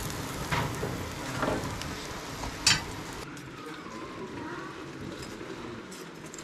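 Two-banded seabream sizzling in a wire grill over wood embers, with crackling and a single loud sharp crack a little before the middle. Then the sizzle drops to a quieter crackle.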